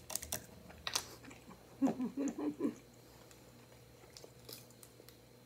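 Long fingernails tapping and clicking on a plastic seltzer bottle, tailing off, with one sharper tap about a second in. Around two seconds there is a short hummed vocal sound in a few broken pieces.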